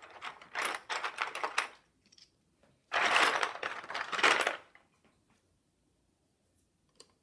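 Loose plastic Playstix building pieces clattering and clicking against one another as a hand rummages through them in their box, in two spells of rapid clicks, the second, about three seconds in, the louder.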